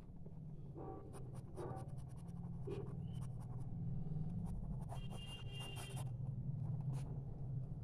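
Pencil shading on paper: many short scratching strokes in quick succession, over a steady low hum.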